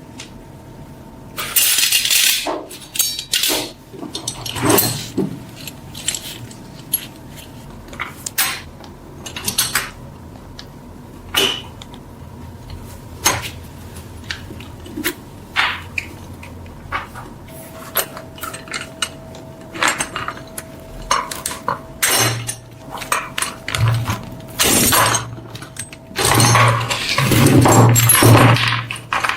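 Hand work on metal: irregular clinks, taps and knocks of metal on metal, broken by a few longer scraping passes, the loudest near the end.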